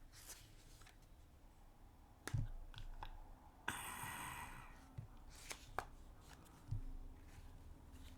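Tarot cards being handled on a table: a few soft taps and clicks, with a short rustle of cards sliding about four seconds in.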